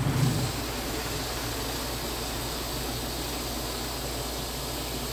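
Water from a garden hose nozzle running steadily into a plastic gallon jug, filling it.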